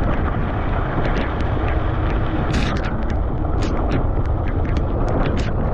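Steady wind noise on the microphone during a ride in the rain, with scattered sharp ticks throughout.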